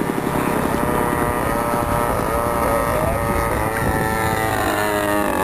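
Radio-controlled Texan model airplane's engine running steadily, its pitch wavering up and down with the throttle and the plane's passes.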